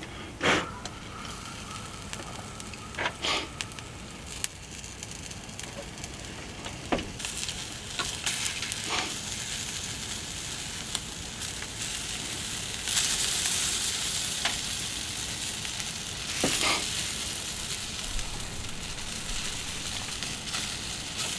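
Food sizzling in a hot pan over a wood fire, the sizzle building and then jumping louder about two-thirds of the way in. A few sharp clicks and knocks of utensils against the pan come in the first few seconds and once more near the three-quarter mark.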